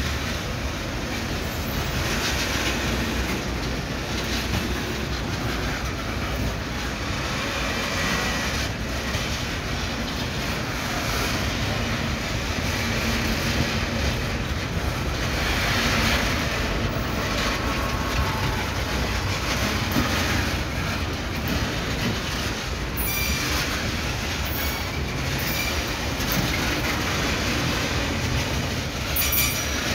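Loaded bauxite ore wagons of a freight train rolling past on broad-gauge track: a steady wheel-on-rail rumble with clickety-clack over the rail joints and wheel squeal at times. Sharper clicks come near the end.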